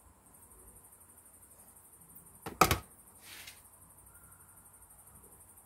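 A yellow metal pot is set down on a metal tray with one sharp knock about two and a half seconds in, followed by a short scrape. Crickets chirp steadily behind.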